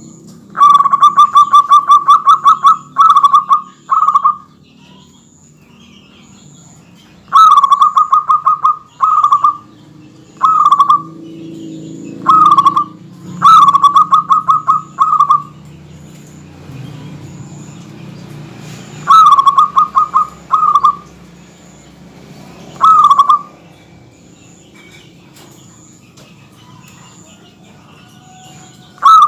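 Zebra dove (perkutut) cooing: about a dozen phrases of rapid staccato coo notes, some short and some running two seconds, separated by pauses of one to several seconds.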